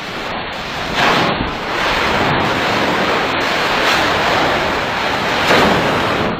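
Loud, continuous rushing roar of noise with no clear pitch, swelling about a second in and again near the end.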